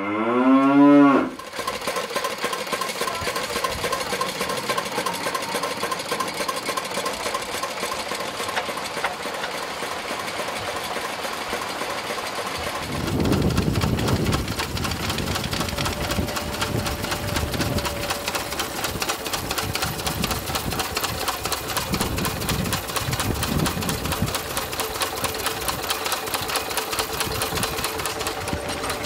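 Vintage stationary engines running together with a fast, steady clatter of firing and valve knocks. About halfway, a deeper, uneven throbbing joins in for several seconds. At the very start, the tail of an intro music tune.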